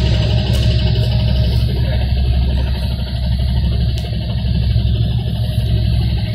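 Interior of a NefAZ 5299-40-57 city bus running on compressed natural gas: a steady low engine drone heard from inside the passenger cabin.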